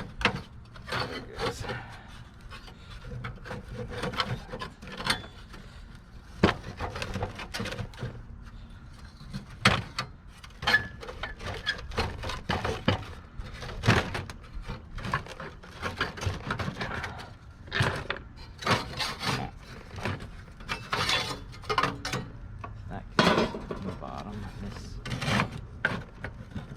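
Irregular knocks, clanks and scraping of rusty metal parts being handled and worked apart: an old Studebaker truck heater housing and its core being disassembled.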